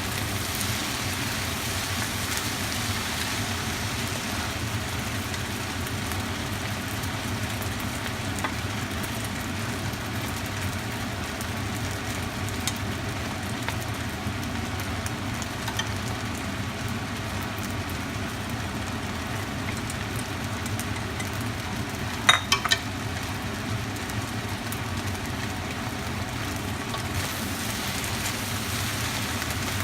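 Rice noodles sizzling steadily as they are stir-fried in a hot pan. About three quarters of the way through comes a quick cluster of three or four sharp knocks.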